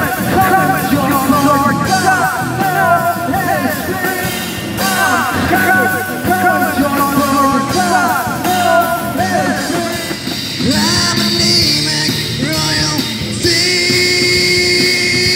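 Live rock band playing loud: electric guitar with bending, wavering notes over bass and drums, settling into long held notes near the end.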